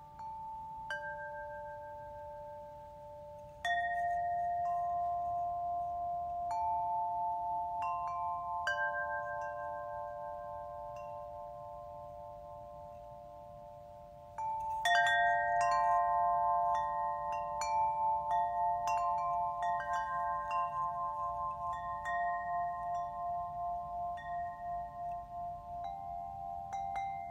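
Tuned chimes struck one or a few at a time, each note ringing on long and overlapping the others with a slow wavering beat. A cluster of strikes about halfway through is the loudest, and strikes come more often after it.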